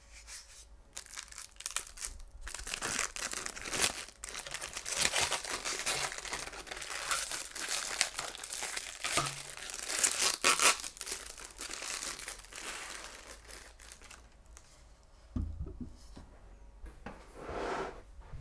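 Clear plastic protective wrap being pulled off a monitor stand and crumpled by hand, crinkling and tearing in irregular bursts, loudest about a third of the way in and again past the middle. It dies down after that, and a single low thump follows.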